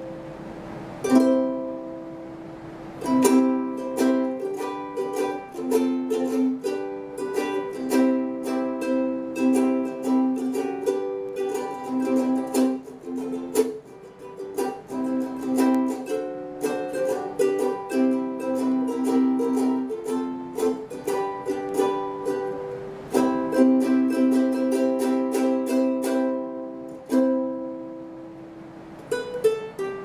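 aNueNue Moon Bird US200 soprano ukulele with a moon spruce top, played solo: plucked single notes and chords, easing off briefly about halfway and again near the end, then a descending run of single notes.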